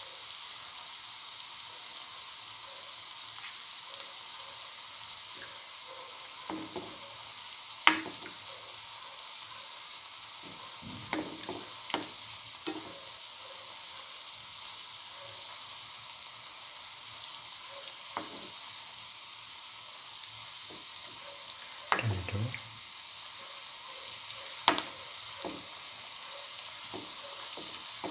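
Potato-chickpea fritters sizzling steadily in shallow hot oil in a pan, with a slotted metal spatula knocking and scraping against the pan now and then, sharpest about a third of the way in and again near three-quarters through.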